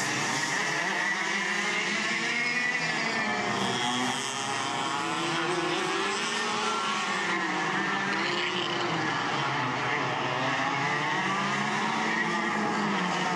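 Several racing go-kart engines revving up and down as the karts lap the track, their pitches rising and falling and overlapping.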